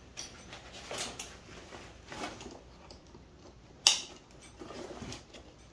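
Handling noise from a rope bag full of climbing rope being cinched shut by hand: faint rustling of fabric and rope with a few short clicks, the sharpest about four seconds in.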